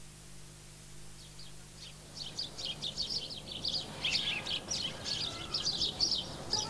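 Birds chirping and twittering in quick, high, irregular calls, fading in about two seconds in over a faint steady hum.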